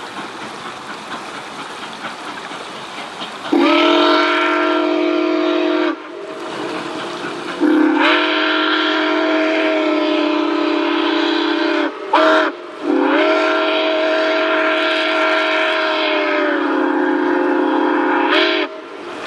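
Nickel Plate Road 2-8-4 Berkshire No. 765's chime steam whistle blowing long, long, short, long: the grade-crossing signal. The last blast sags in pitch before it cuts off. Before the first blast the train's running noise is heard.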